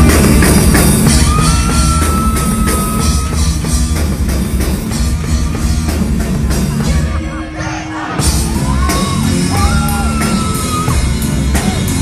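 A live heavy metal band playing: distorted guitar, bass and drums, with a singer holding a long note twice. The music thins out briefly about two-thirds of the way through, then comes back in full.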